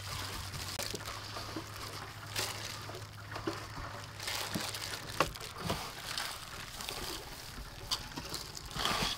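Hands working marinated chicken drumsticks in a stainless steel bowl and pressing them into breadcrumbs: quiet wet squishing and crumb rustling, with scattered light taps against the bowls.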